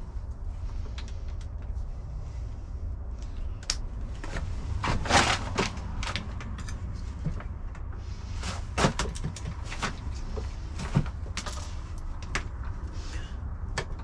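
Ratcheting torque wrench clicking and knocking in irregular bursts as a bicycle crankset's crank bolt is tightened to 50 newton metres, over a low steady hum.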